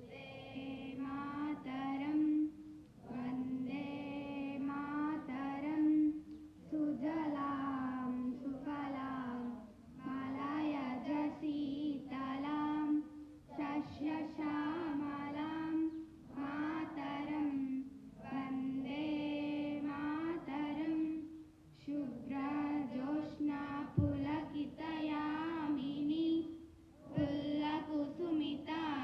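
Schoolchildren singing a song together in unison, in phrases of a few seconds with short breaks for breath between them.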